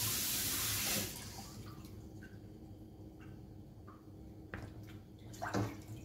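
Kitchen tap running into the sink while fish is washed, shut off abruptly about a second in; then a few faint drips and light knocks in the sink, with a louder knock near the end.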